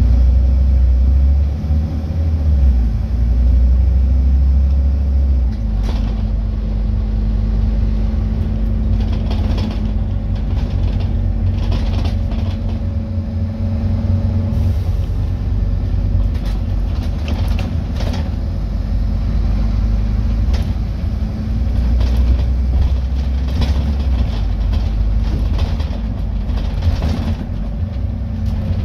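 Scania N230UD double-decker bus, with its five-cylinder diesel, heard from inside the passenger saloon while driving: a steady low engine drone and road noise. Short rattles and knocks from the body and fittings come in from about a quarter of the way through.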